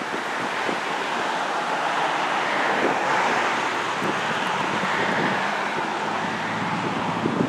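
Steady wind rushing through the trees and buffeting the microphone, a loud even hiss with no clear engine note above it.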